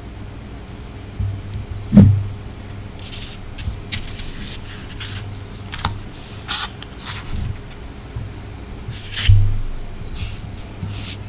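Close-miked eating and handling sounds: scattered clicks, brief wet smacking noises and light rubbing, with a heavier thump about 2 s in and another near 9 s, over a low steady hum.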